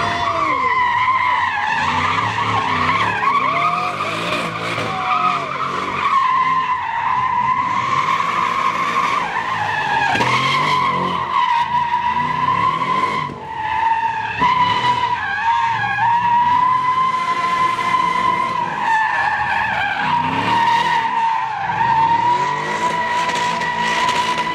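Saleen Mustang spinning donuts, its rear tyres squealing in one long, wavering screech. The engine revs up and down beneath it.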